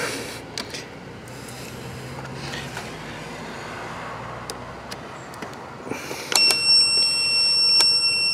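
Faint clicks and rustling as fuses are handled in the truck's under-hood fuse box, then about six seconds in a steady electronic beep, most likely from the digital multimeter used to test the fuse circuits. The beep lasts about two and a half seconds and cuts off suddenly.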